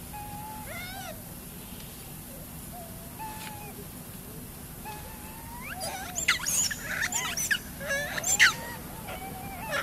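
Young macaques calling: short wavering coos, then from about six seconds in a run of louder, higher squeals and screeches.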